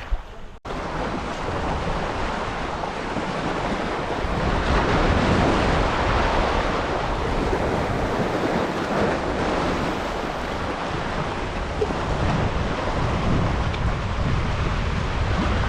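Wind buffeting the microphone over the steady rush of sea water, with no engine note.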